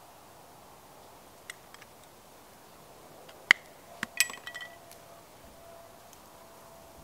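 A few faint ticks, then one sharp clink about halfway through, followed by a quick cluster of clinks and rattles with a brief ringing tone, as small hard objects are handled and set down.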